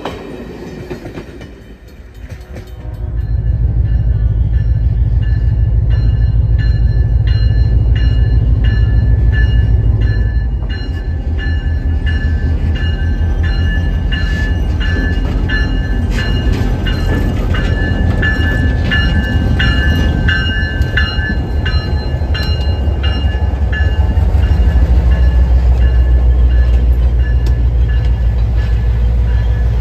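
Passenger coach rolling past for the first couple of seconds, then EMD diesel locomotives idling at close range: a loud, deep, steady engine rumble with steady high-pitched tones and scattered clicks above it.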